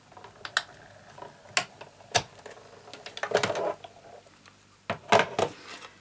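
Big Shot die-cutting machine being hand-cranked, rolling the cutting plates and an oval steel die through, with a series of irregular clicks and knocks.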